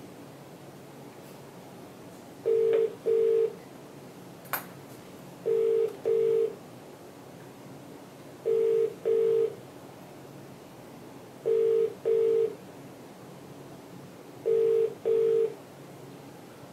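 Australian telephone ringback tone through a desk phone's speaker: a double ring repeating every three seconds, five times, while the called number goes unanswered. A single sharp click about four and a half seconds in.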